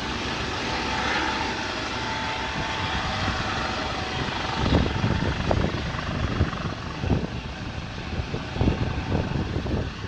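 Rescue helicopter's engine and rotor droning over a steady wash of wind and rough sea. Irregular low thumps break in from about halfway through.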